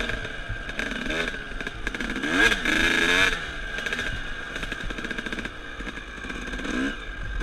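Dirt bike engine revving up and down as the throttle is opened and closed, with the strongest climb in revs about two and a half seconds in.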